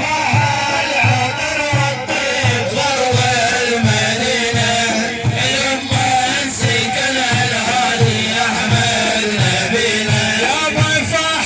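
Middle Eastern religious praise music: a steady low drum beat, about two to three beats a second, under a wavering melodic line.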